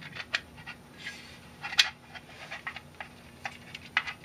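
Scattered light clicks and taps of metal kit parts handled by hand, as two black metal extrusion pieces and a slot nut are fitted together, with a sharper knock a little under two seconds in. The slot nut is catching because over-long bolts stick out into its slot.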